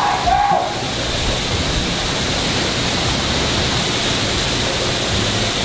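Automatic car wash spray nozzles hissing steadily, with water spray striking the clear plastic of an inflatable bubble ball, heard from inside the ball.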